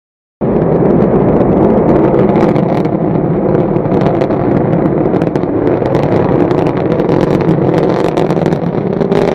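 Rocket roar: a loud, steady rushing rumble thick with crackling pops. It cuts in suddenly a moment in and holds steady.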